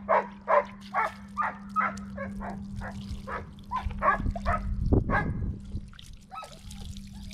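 A dog barking over and over, at first a little more than two barks a second, then more irregular. A low rumbling noise comes about four to five seconds in, and a steady low hum runs underneath.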